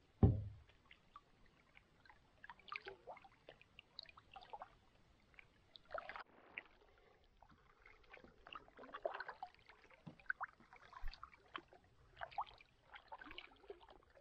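Faint, irregular small splashes and drips of water around a canoe, with a short low thump right at the start.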